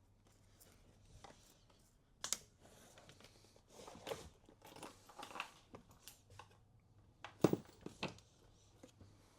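A kitchen drawer being lifted out of its runners: scattered clicks and rustling, a sharp click a little over two seconds in, and two louder knocks in quick succession near the end.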